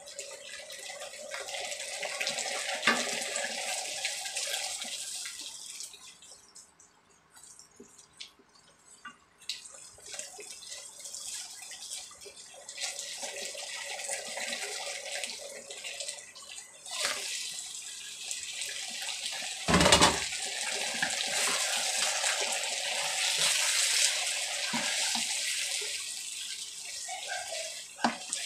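Thick sauce simmering in a wok, bubbling and popping unevenly, with one loud thump about two-thirds of the way through.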